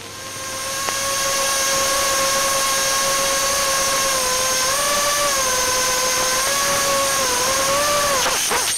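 FPV quadcopter's brushless motors and propellers whining steadily, the pitch dipping and rising a little in the second half as the throttle shifts.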